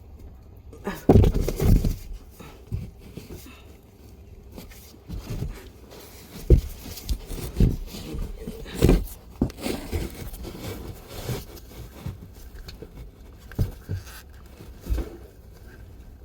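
Irregular knocks, thumps and scrapes of hands gripping and twisting a car's spin-on oil filter, working it loose by hand.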